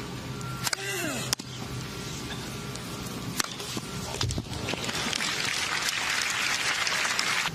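A tennis rally: several sharp strikes of the ball off the rackets in the first half. About halfway through, crowd applause rises as the point is won.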